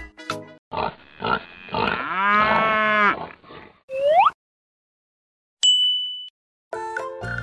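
A drawn-out animal call, cattle-like and bending up and down in pitch, then a quick rising whistle. After a short silence comes a single high bell-like ding. Music stops just after the start and comes back near the end.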